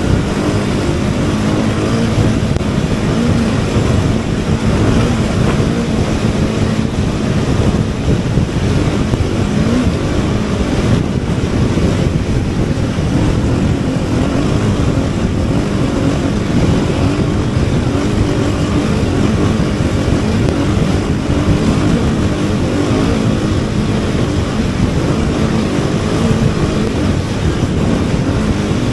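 Car engine running at a steady speed with loud, even road and tyre noise, holding about the same pitch throughout.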